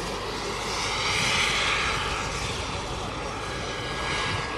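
Turbine-powered Bell 412 helicopter flying past: a steady high turbine whine over the engine and rotor noise, swelling about a second in and easing off after.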